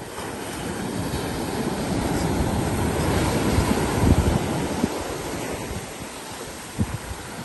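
Ocean surf breaking and washing up a sandy beach, building to its loudest about four seconds in, with wind gusting on the microphone.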